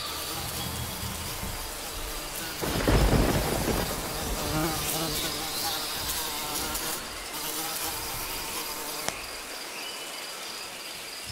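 A steady hissing, noisy background with a deep rumble about three seconds in that fades over a second or so.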